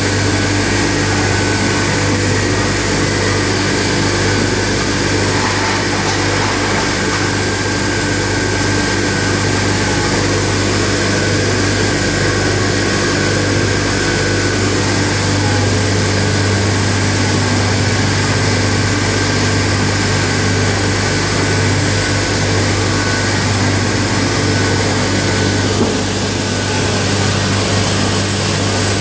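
Duran Omega Intro 110 folder-gluer running at production speed, about 13,000 cartons an hour, with carton blanks travelling along its transport belts. The noise is a steady, unbroken mechanical hum with a few constant high tones over it.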